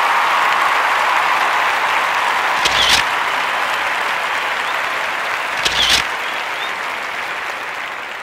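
A room full of people applauding, the clapping slowly dying down, with two brief louder peaks rising above it about three seconds apart.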